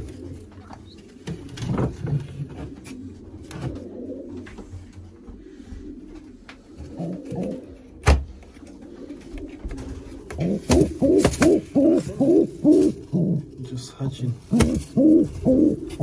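Racing pigeons cooing in a nest box: soft low coos at first, then a run of loud rhythmic coos, about two or three a second, over the last six seconds. A single sharp knock about halfway through.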